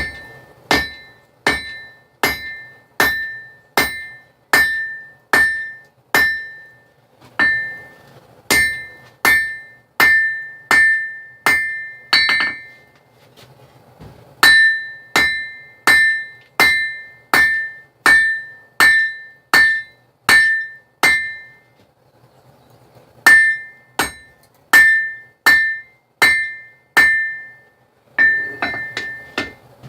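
Hand hammer striking hot knife steel on an anvil, a steady beat of ringing metallic blows about one every 0.7 seconds, in four or five runs with short pauses between them. A faint low hum runs underneath.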